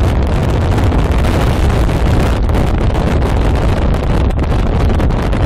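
Steady, loud rush of wind buffeting the microphone, mixed with low road rumble, as the recording vehicle travels at motorway speed.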